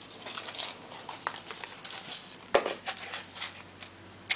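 Foil wrapper on a chocolate surprise egg crinkling and crackling in small irregular clicks as it is unwrapped by hand, with one sharper snap about two and a half seconds in.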